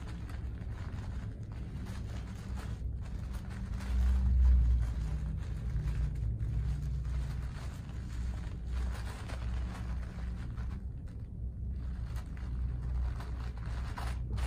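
Soft rustling of a printed wrap being folded and smoothed around a parcel by hand, over a steady low rumble that swells briefly about four seconds in.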